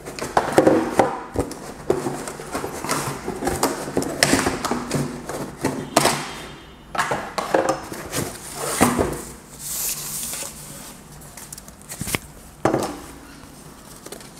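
Cardboard packaging and the plastic parts of a metal detector being handled during unboxing: irregular rustling, scraping and light knocks, with a couple of sharper knocks near the end.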